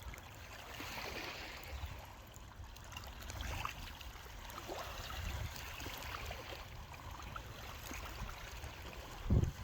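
Water trickling and lapping at the shore, with wind rumbling on the microphone and a few small ticks. A louder bump near the end.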